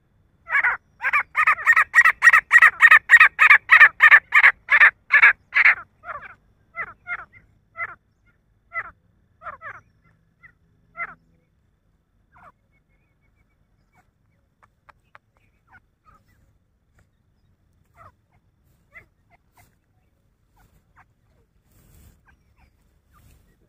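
Male grey francolin calling: a fast run of loud, shrill repeated notes, about three a second, that after about six seconds slows and fades into scattered softer notes, leaving only faint ticks in the second half.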